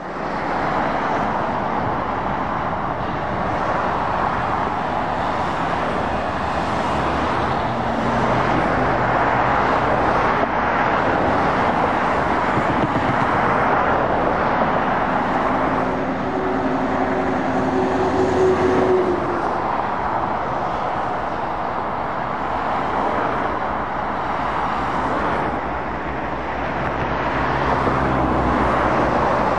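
Steady dual-carriageway traffic noise from passing cars and lorries. About halfway through, the engine note of a Scania V8 lorry rises above it, and another lorry engine is heard near the end.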